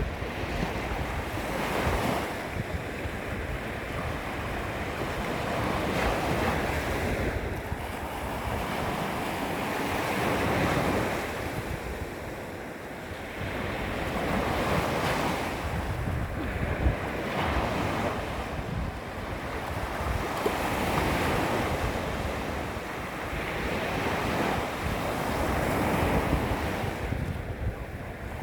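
Small sea waves lapping against the shore, the wash swelling and fading every few seconds, with the low rumble of wind buffeting the microphone.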